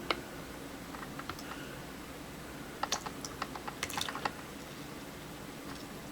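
Sharp clicks and clatter of plastic parts, one at the start and a quick cluster about three to four seconds in, from opening the drip coffee maker's filter basket to take out the coffee filter, over a low steady hum.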